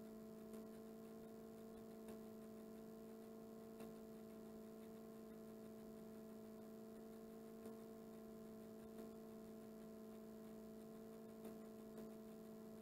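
Near silence: room tone with a steady low electrical hum and a few faint, brief ticks.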